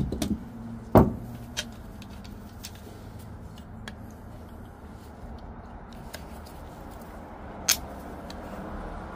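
Hard plastic purge valve and steel pliers clacking as they are handled and set down: one sharp clack about a second in, another near the end, and a few faint ticks in between, over a steady low hum.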